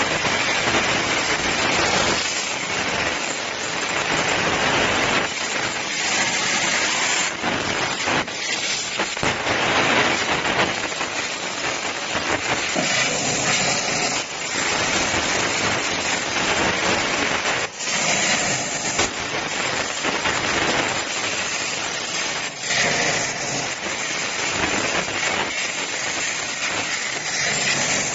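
CNC plasma cutting machine at work: a steady, loud hiss from the plasma torch cutting steel plate, with small rises and dips in level.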